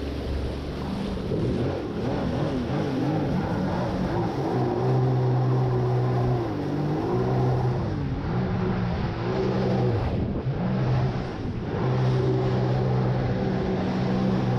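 Jet ski engine running hard, its pitch rising and falling as the throttle is worked, with a brief dip in power about ten seconds in.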